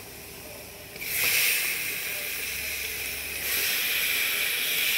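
Raw chicken pieces hitting hot oil, fried onions and spice powders in a pot, sizzling hard from about a second in.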